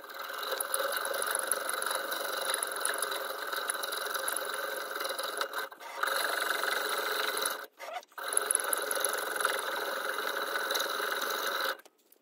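Hacksaw blade held in the parting groove of a brass workpiece turning in a lathe chuck, cutting it free with a steady scraping screech. The sound drops out briefly twice and stops just before the end.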